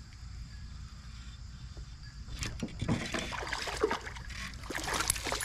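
A hooked bass thrashing and splashing at the water's surface beside a kayak, a rapid, irregular run of splashes that starts about two and a half seconds in, over a steady low rumble.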